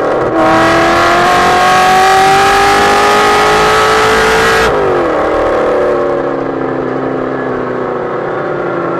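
Ford 351 Cleveland V8 at full throttle through a dual 3-inch exhaust with Magnaflow mufflers, a naturally aspirated exhaust howl. Just after the start the note breaks and drops at a gear change, then it climbs steadily for about four and a half seconds. Then the throttle closes and the note drops and falls away slowly, quieter.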